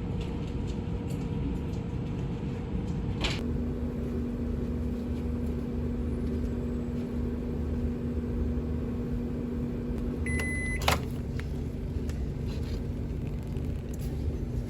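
Microwave oven starting with a click, running with a steady hum for about seven seconds, then stopping with a short beep as it finishes, followed by a sharp click of the door opening.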